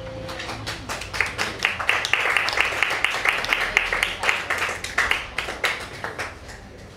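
A small audience of diners applauding as the last acoustic guitar chord dies away; the clapping builds quickly, then thins out and stops about six seconds in.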